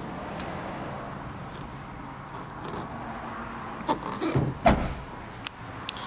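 Tailgate of a Range Rover Evoque being shut, closing with one deep thump about four and a half seconds in.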